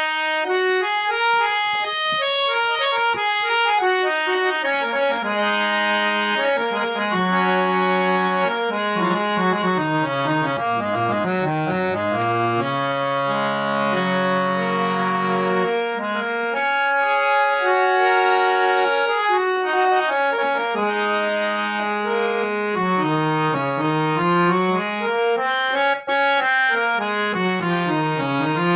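Two-line folding harmonium with Palitana reeds being played. It runs quickly down and up the keyboard in stepwise scales over held notes, with a brief break in the sound near the end.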